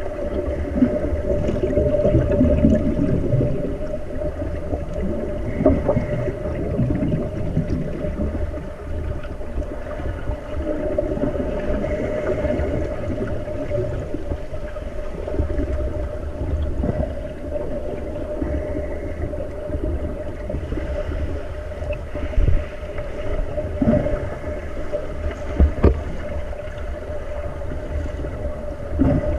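Underwater pool sound heard through the water: bubbling and churning from finned swimmers grappling, over a steady hum, with a few sharp knocks.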